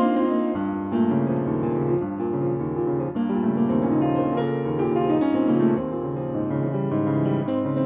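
Solo concert grand piano played live: a steady flow of chords and melody notes, with bass notes coming in about half a second in.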